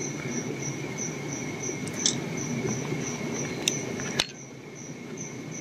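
Insects chirping: a high pulsed chirp about four times a second over a steady high trill. Three sharp clicks come a couple of seconds in, and a low rumbling noise drops away after the last one.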